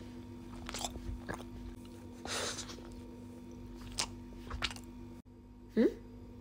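Close-miked eating of a frosted cupcake: scattered bites, lip smacks and soft crunches. Near the end comes a short rising springy sound effect.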